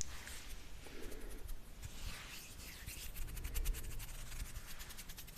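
Faint close-up rubbing and scratching against the microphone, with a run of quick crackling ticks in the middle.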